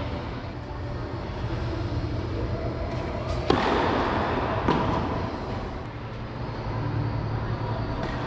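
Two sharp tennis-ball knocks about a second apart, ringing in a large indoor court hall, over a steady low hum.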